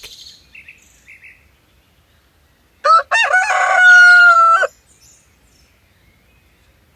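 Rooster crowing once, about three seconds in: a cock-a-doodle-doo of about two seconds with two short opening notes and a long held final note.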